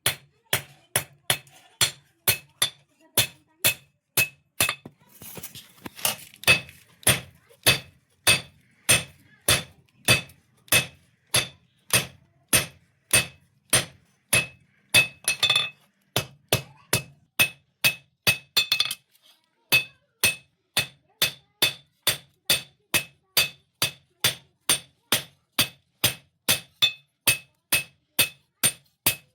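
Blacksmith's hammer striking a blade on an anvil in a steady rhythm, about two blows a second, each blow ringing brightly as the sickle blade is forged. A short stretch of rough noise sits between blows around six seconds in and again around fifteen seconds in.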